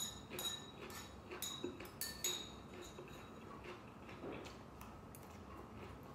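Eating utensils clinking against a bowl of noodle soup during a meal: a string of light clinks with a short ring, most of them in the first couple of seconds, then fewer.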